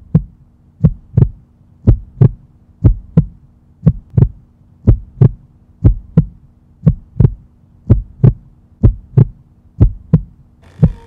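Heartbeat sound effect: paired low thumps, lub-dub, about one pair a second, over a faint steady hum. Near the end a faint higher tone and a falling glide come in.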